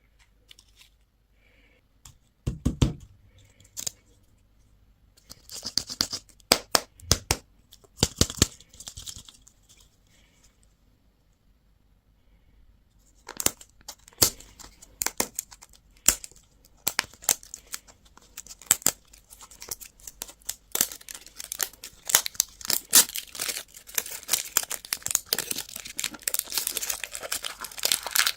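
Plastic candy wrapper being crinkled and torn open by hand. It starts with a few sharp handling taps and a dull thump, goes quiet for a few seconds, then becomes dense, continuous crinkling and tearing that builds toward the end.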